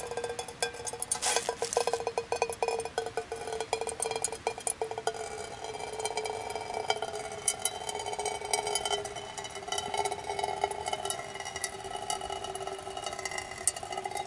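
Filtered water from a hollow-fiber gravity water filter trickling and dripping into a metal pot. Rapid drips in the first half settle into a steadier trickle, with a ringing tone from the pot.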